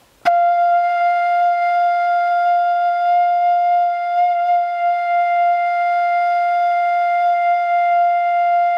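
A bamboo pífano (Brazilian side-blown fife) playing one long, steady held note that starts about a quarter second in, as a long-note tone exercise for building a firm, even sound.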